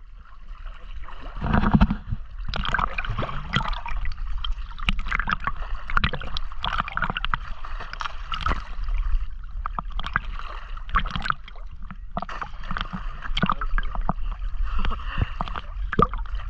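Water sloshing and gurgling against a camera held at the waterline, with irregular splashes and bubbly ticks as a swimmer moves through the water. There is a louder splash about two seconds in.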